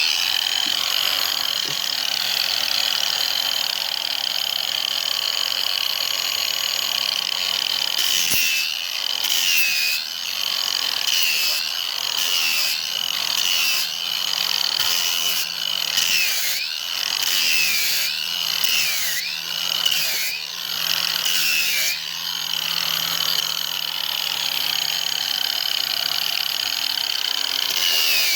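Handheld grinder running on cured fiberglass filler, feathering it out. Its whine holds steady at first, then from about eight seconds in it repeatedly dips and recovers in pitch as the tool is bogged down against the surface, then runs steady again for the last few seconds.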